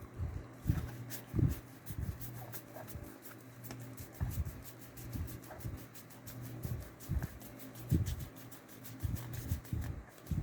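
Trading cards being handled and flipped through by hand: a rapid, fairly even run of light clicks, with soft handling thumps and a steady low hum underneath.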